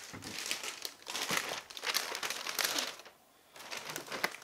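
Takeout packaging crinkling and rustling in irregular bursts as it is handled and opened, with a short pause about three seconds in.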